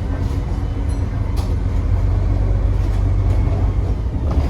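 Single-decker bus diesel engine running at low revs, a steady low rumble, with a few faint clicks and knocks.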